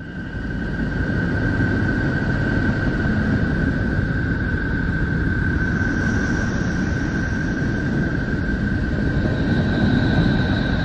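Neptune 'planet sound', a space-sound recording played as audio: a steady rumbling drone of noise with a steady high, whistle-like tone running over it. It fades in during the first second.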